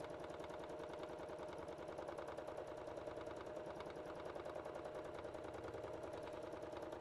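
Domestic sewing machine stitching steadily at speed during free-motion quilting: a rapid, even run of needle strokes over a steady motor hum.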